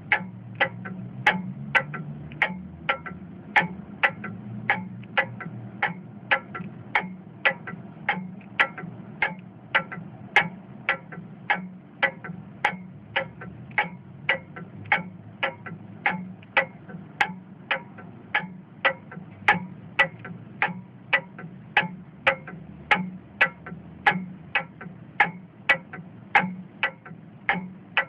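Steady, evenly paced ticking, a little under two ticks a second, like a clock, over a low steady hum.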